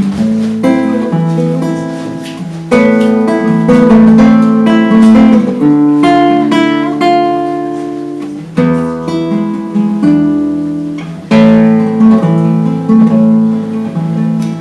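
Acoustic guitar playing the introduction to a song: strummed chords that ring out and fade, with fresh strong strokes about every three seconds.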